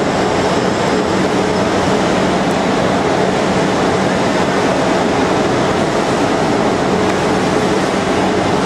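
Steady running noise of a PC-controlled CNC shaping lathe turning a porcelain insulator, a continuous machine rumble with a low, even hum underneath.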